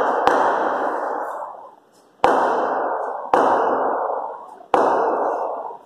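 Four sharp bangs, irregularly spaced, each followed by a long echo dying away in a large hard-walled hall.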